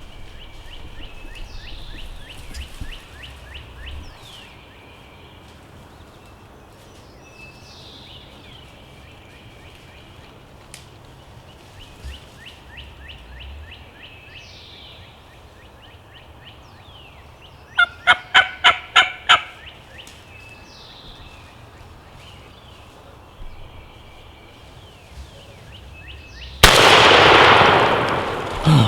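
Wild turkey gobbler gobbling once about two-thirds of the way in, a loud rattling gobble of about seven quick notes. Near the end comes a single loud shotgun blast that echoes away over about two seconds: the shot that kills the gobbler.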